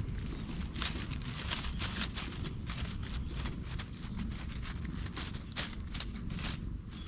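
Dry fallen leaves crackling and rustling close up as a hand scratches a cat's cheek and chin, many short irregular crackles over a steady low rumble.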